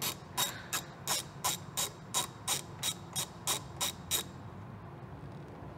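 Ratchet wrench clicking in an even rhythm, about three clicks a second, while backing a 10 mm nut off a side-mirror mounting stud; the clicking stops about four seconds in.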